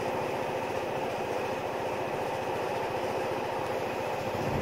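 High-voltage capacitor bank's charging supply giving a steady hum with a fast buzzing flutter as the bank charges to about 2,400 volts, short of firing. A short low thump comes at the very end.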